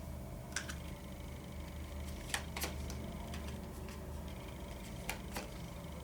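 Tarot cards being handled: a few light, separate clicks and taps, about five in all, over a faint steady hum.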